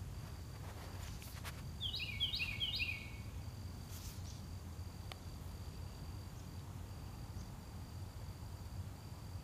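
A songbird sings one short phrase of three quickly repeated falling notes about two seconds in. Under it run a faint high steady tone that breaks off now and then, typical of an insect, and a low steady rumble.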